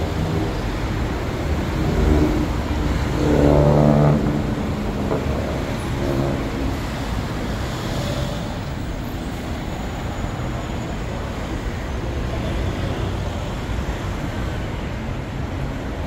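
Busy city street ambience at night: a steady hum of road traffic with a murmur of people. One sound swells louder about three to four seconds in.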